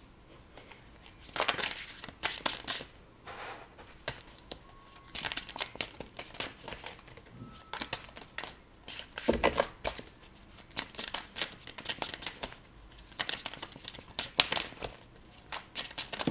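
A tarot deck being shuffled by hand, the cards rustling and flicking in repeated bursts, with a louder thud about nine seconds in.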